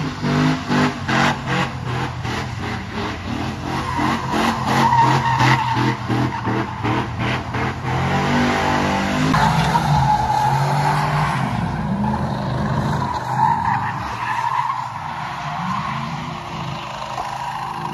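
A vehicle doing donuts with its tires squealing, the engine revving in quick pulses about three times a second. About eight seconds in, the revs climb and then hold with shifting pitch over the steady tire screech.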